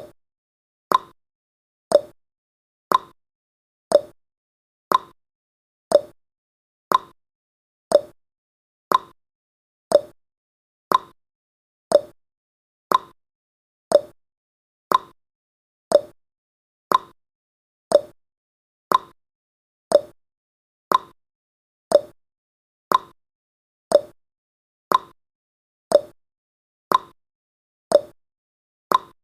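Clock-ticking sound effect of a countdown timer: one short tick every second, alternating between a higher and a lower pitch like a tick-tock.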